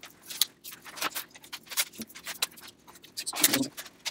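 Quick, irregular taps, scuffs and paper rustles of sticky notes being pressed and smoothed onto a whiteboard by hand, with a louder scrape about three and a half seconds in.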